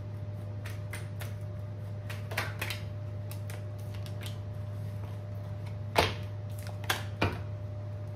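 A deck of tarot cards shuffled and handled by hand: a run of light card clicks and flicks, with a few sharper snaps later on. A steady low hum sits underneath.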